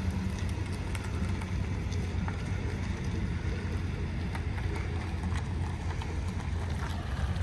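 Pickup truck towing a boat on its trailer across pavement: a steady low rumble with faint scattered clicks and rattles.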